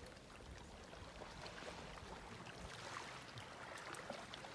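Faint lapping of calm sea water at a pebble and rock shoreline, a soft wash with small trickles and scattered clicks.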